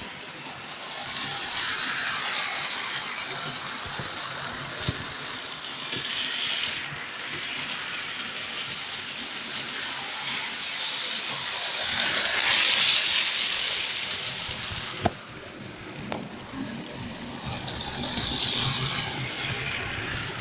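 Model Class 24 and Class 40 diesel locomotives running round the layout with their trains: a steady, noisy rush of motors and wheels on the rails that swells as a train passes close, around two seconds in, about twelve seconds in and again near the end. A sharp click comes about fifteen seconds in.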